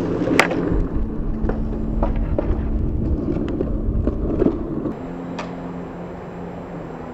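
Skateboard wheels rolling over stone paving with a steady rumble, broken by a few sharp clacks of the board; the rolling stops about five seconds in, leaving a low hum.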